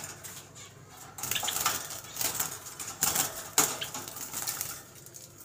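Java sparrows fluttering in a small wire cage as one is put in by hand: flurries of wingbeats with light metallic rattles and clicks of the cage wire, starting about a second in and dying down near the end.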